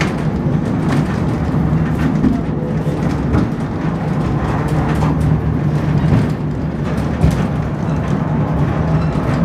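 Babbacombe Cliff Railway funicular car running along its rails: a steady rumble with a low hum and a few light clicks.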